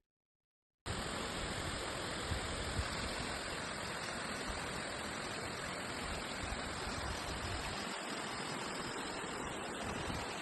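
Steady rush of a river stream's flowing water, beginning about a second in after a brief moment of silence.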